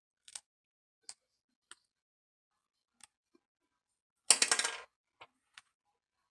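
Small sharp clicks and taps from handling a tiny screwdriver and screws while reassembling an iPad. About four seconds in there is a short, louder clatter, like a small metal tool or part knocking down onto a hard surface.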